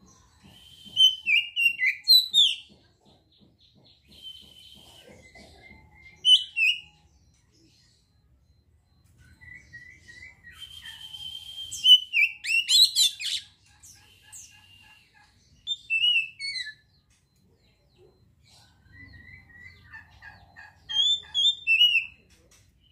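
Oriental magpie-robin (kacer) singing in five separate bursts of clear whistles and quick chattering notes, the longest phrase about three seconds long in the middle, with pauses of a few seconds between them.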